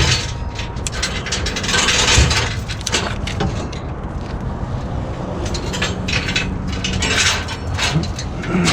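Tie-down chains clinking and knocking in a run of short metallic clicks as they are hooked and handled, with a couple of longer rattling scrapes, over a steady low hum.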